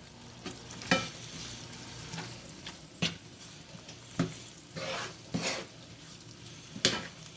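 Onions, peppers and mushrooms sizzling in a hot pot as they are stirred, with a spoon scraping and knocking against the pot about six times.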